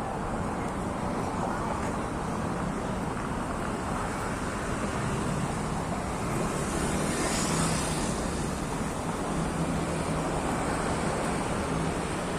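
Steady street traffic noise, swelling briefly about seven seconds in.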